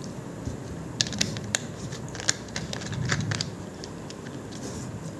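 A plastic soft-drink bottle handled and set down, giving a run of sharp clicks and crinkles, then gulps of the dark fizzy drink from a glass.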